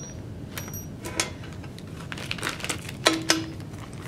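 Small steel nuts and washers clicking and scraping on a steel plate as they are gathered up by hand, with a plastic parts bag rustling. The sharpest clicks come about a second in and twice near three seconds in, one leaving a short metallic ring.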